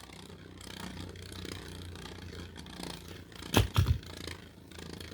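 Spinning Beyblade tops whirring and scraping against each other and the plastic stadium, with two sharp knocks about three and a half seconds in.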